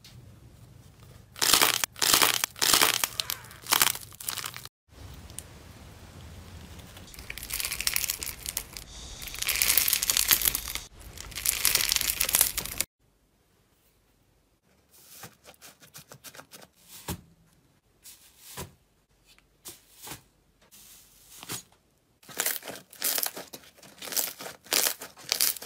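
Hands squeezing and kneading slime and squishy slime toys: dense crackling and crinkling bursts, then after an abrupt cut about thirteen seconds in, sparser sharp clicks and pops.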